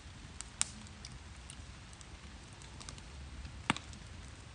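Wood campfire crackling, with a few sharp, scattered pops, the loudest one late on, over a low steady rumble.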